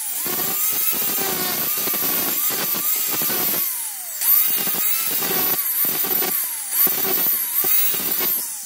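Power tool polishing a steel spanner, with a steady scraping and grinding of the metal against the wheel. The motor whine repeatedly dips in pitch as the spanner is pressed in and rises again as it recovers speed, several times.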